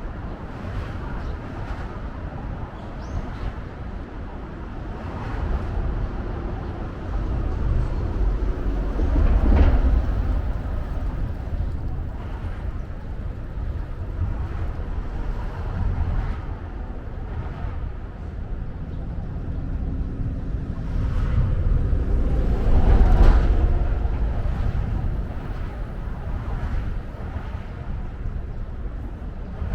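Outdoor city ambience with a steady low rumble of traffic. Two louder vehicle passes swell and fade, the first peaking about ten seconds in, the second a little after twenty seconds.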